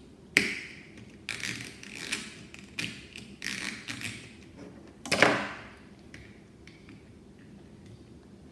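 Plastic Lego pieces knocking and clicking as the model is handled and a piece is fitted into place: a string of sharp knocks over about five seconds, the loudest near the start and about five seconds in.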